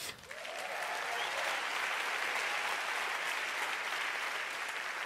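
Audience applauding, building up within the first second and holding steady, then starting to fade near the end.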